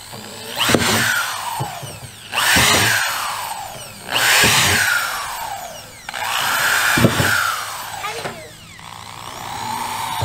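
Power drill boring drain holes through the bottom of a plastic 55-gallon drum half, in about five bursts of a second or two each, the motor's whine sinking in pitch during each burst.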